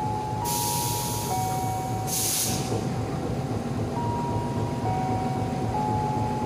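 Standing passenger train's steady low rumble, with two bursts of air hissing from the train in the first two and a half seconds. Faint held tones step up and down in pitch.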